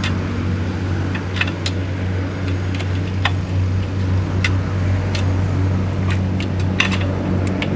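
An engine running steadily with a low hum, under irregular sharp metallic clicks of wrenches on the steel bolts of a flange adaptor being tightened.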